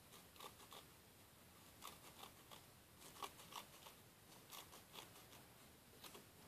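Small scissors snipping through a felt strip, about a dozen faint, short snips spaced unevenly as the excess felt is trimmed away.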